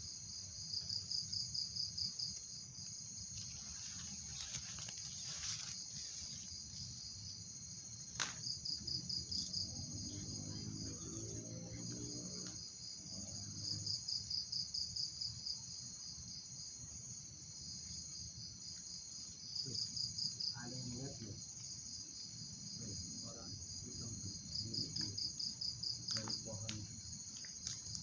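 Crickets chirping: a steady high trill, broken by louder runs of rapid chirps about every five to six seconds, five in all. A faint low murmur and a single sharp click about eight seconds in sit beneath the insects.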